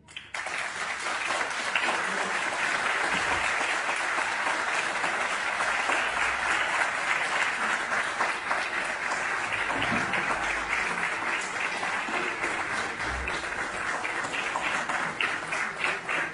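Audience applauding, starting suddenly right after a moment of quiet and going on steadily; near the end the clapping thins out into more separate claps.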